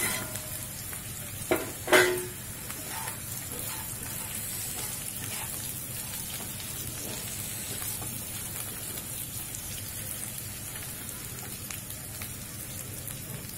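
Onions, green chillies and batter-fried mushrooms sizzling steadily in hot oil in a wok over a high gas flame as they are stirred together. Two short knocks come about a second and a half and two seconds in, the second with a brief ring.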